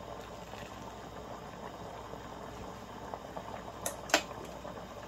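A pot of bone broth boiling, a steady bubbling. About four seconds in come two sharp clinks of the plate against the metal strainer basket.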